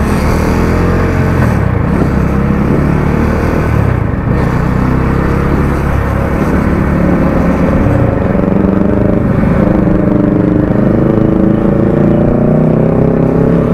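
Motorcycle engines running in road traffic: the rider's Bajaj Dominar 400 single-cylinder and a nearby Kawasaki Ninja fitted with a modified aftermarket silencer. The engine pitch shifts up and down near the end.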